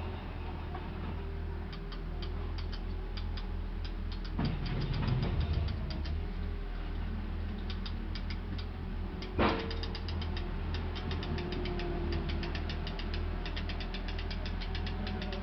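Outdoor ambience of rapid, repeated trains of dry high ticking over a steady low rumble, with one sharp knock about nine seconds in.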